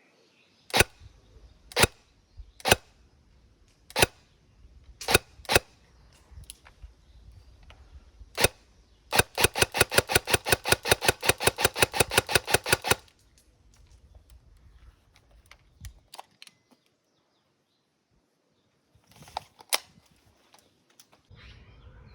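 Upgraded Cyma SR25 airsoft electric gun (AEG DMR) firing: several single semi-auto shots spaced a second or so apart, then a rapid full-auto burst lasting about four seconds, and two fainter shots near the end.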